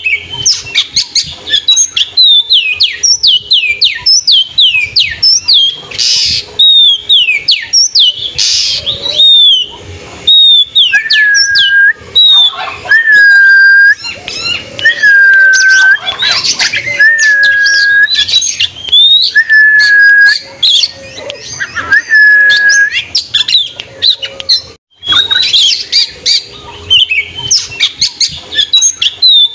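Oriental magpie-robin (kacer) singing loudly. Quick runs of sharp, downward-slurred whistles give way, about ten seconds in, to a series of long, level whistles one every second or two, with short clicking notes between. The quick slurred notes return near the end.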